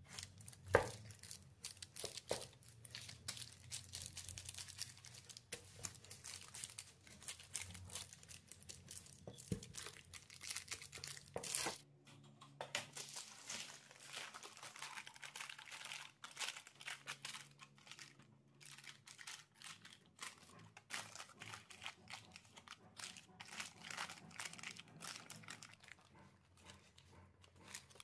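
Kitchen food-preparation noises: quick irregular scraping, rustling and crinkling, with one sharp knock about a second in.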